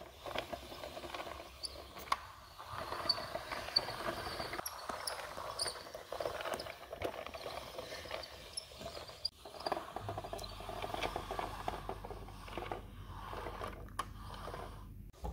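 Plastic Schleich toy pickup truck and horse float being rolled along a hard floor: an uneven rolling scrape with scattered small clicks and rattles from the plastic wheels and hitch. A low steady hum joins about two-thirds of the way in.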